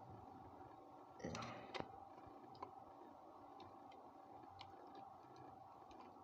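Near silence with faint, scattered small clicks and ticks of hand work at a 13 A socket's terminal as the neutral cable is fitted, with a slightly louder rustle and click about a second and a half in. A faint steady hum lies underneath.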